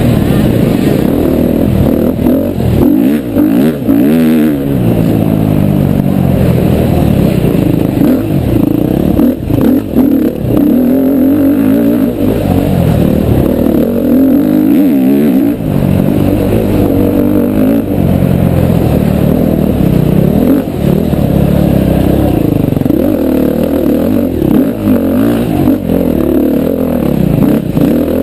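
2011 KTM 350 XC-F's single-cylinder four-stroke engine under race throttle, heard from the rider's helmet, its pitch climbing and dropping over and over as the rider accelerates, shifts and backs off.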